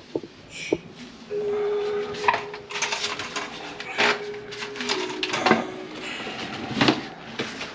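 Metal clinks and knocks as a drain snake's cable and other plumbing gear are handled in the cabinet under a kitchen sink, over a steady hum that starts about a second and a half in.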